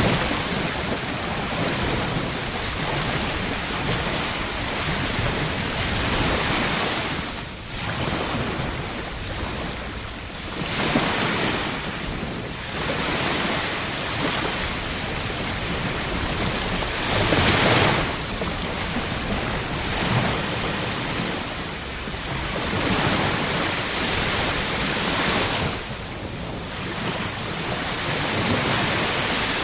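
Ocean surf: waves washing in and drawing back, a steady rush that swells and falls every few seconds, with one louder wave about two-thirds of the way through.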